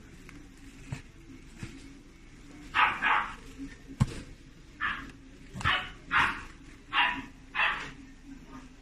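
Chihuahua–Dachshund mix puppy barking in short barks: two close together about three seconds in, then five more spaced under a second apart. A single sharp knock sounds between the first pair and the rest.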